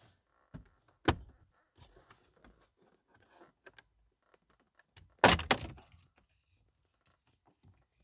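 Plastic shifter trim panel of a second-gen Scion xB being pried off its spring clips. There is a sharp click about a second in and faint plastic rustling, then a louder cluster of two or three snaps about five seconds in as the clips let go.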